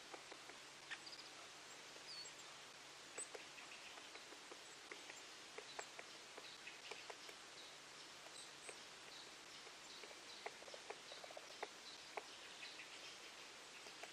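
Near silence: faint outdoor background with scattered small clicks and faint high chirps.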